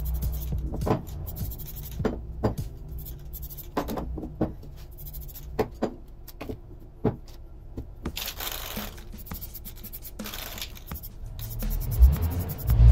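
Metal motorcycle hub and brake-drum parts being handled and moved on newspaper: scattered light clicks and knocks with paper rustling, a short hiss a little past the middle, and a heavier thump near the end as a part is set down.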